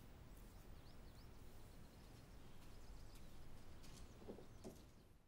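Near silence: quiet room tone, with two faint soft knocks about four seconds in.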